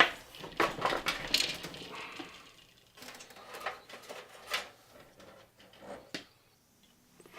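Handling noise from fitting a power supply into a PC case: irregular clicks, knocks and scrapes.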